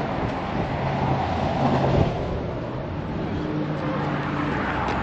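Car engine and road noise: a steady hum and rush.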